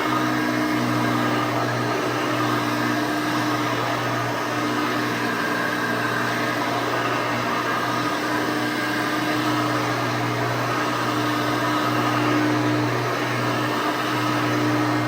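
Hoover Elite 600 upright vacuum cleaner running steadily, its motor giving a constant hum.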